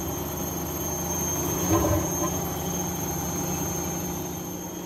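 Front-loading washing machine near the end of its cycle, its timer at one minute left: a steady hum under a thin, high, unchanging whine, with a brief low knock about two seconds in.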